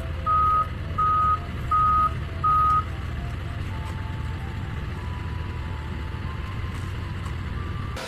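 A heavy vehicle's reversing alarm sounds five steady beeps at one pitch, about one and a half a second, then stops about three seconds in. The vehicle's diesel engine keeps up a low rumble throughout.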